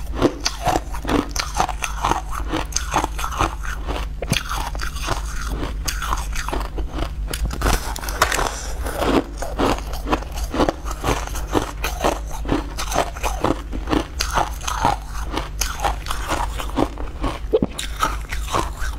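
Close-up crunching and chewing of blue-tinted crushed ice in the mouth: a rapid, continuous run of crisp crunches, over a steady low hum.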